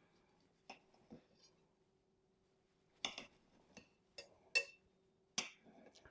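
Knife and fork clicking and scraping against a plate as a cooked sirloin steak is cut into: scattered short sharp clicks, the loudest about four and a half seconds in.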